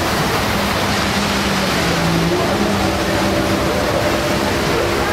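Steady rush of wind and water on the deck of a patrol ship under way, with faint steady hum tones underneath.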